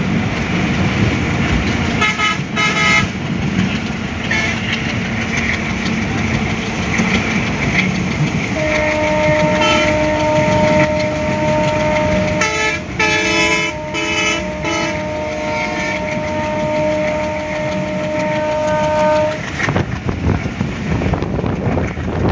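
Steady running noise of a passenger train heard from its carriage window, with road vehicle horns honking in short blasts. About a third of the way in, a long steady horn sounds for around ten seconds, with more short honks over it.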